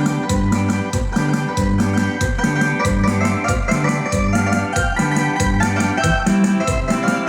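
Instrumental Mixtec dance song played live on electronic keyboard, with a bass line and a steady percussion beat.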